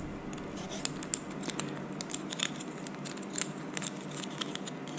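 Light, scattered clicks and rustles of a plastic tweeter angle mount and its speaker wires being handled as the wires are fed through the hole in the back of the mount.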